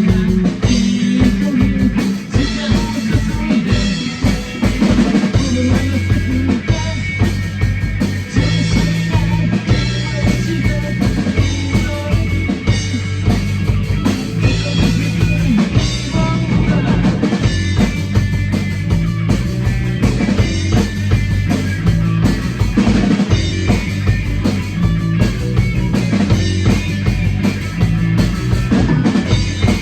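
Rock music with a drum kit keeping a steady, driving beat, bass drum and snare prominent, over sustained low notes.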